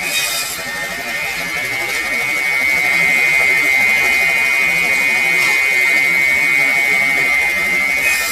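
Homemade firewood circular saw running, its spinning blade giving a steady high whine, with brief rasping noise at the start and near the end as wood is fed through the blade.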